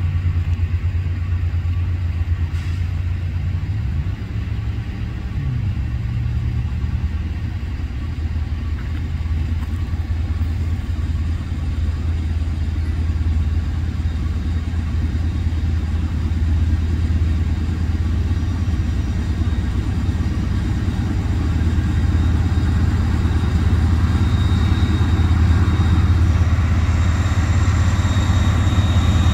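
Approaching diesel freight locomotives: a steady low rumble that grows louder over the last several seconds as the train nears.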